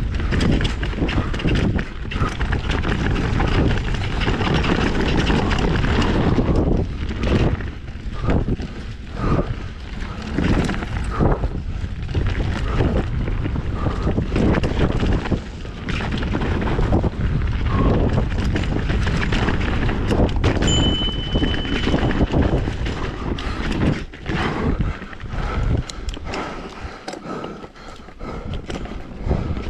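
Wind rushing over the microphone as a mountain bike descends a trail at speed, with the bike rattling and knocking over rocks and roots.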